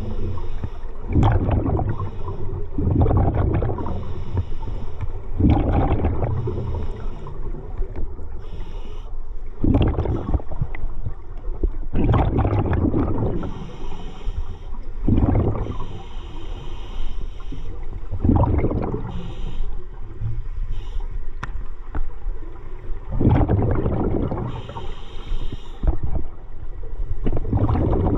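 Scuba regulator breathing underwater: a burst of exhaled bubbles gurgling out every few seconds, with a thin hiss of air drawn through the regulator between them.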